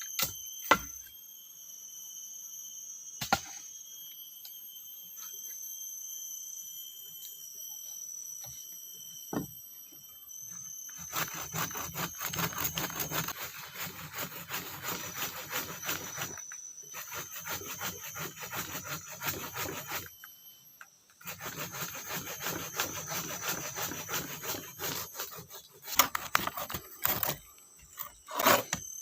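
Hand saw cutting through wood in three bouts of rapid back-and-forth strokes, each a few seconds long, with a few sharp knocks of wood near the end. Insects buzz steadily at a high pitch behind it.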